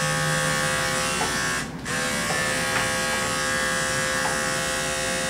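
Andis five-speed corded dog clipper running with a steady electric hum as it is worked over a Yorkie puppy's head and ears. The hum dips briefly just under two seconds in.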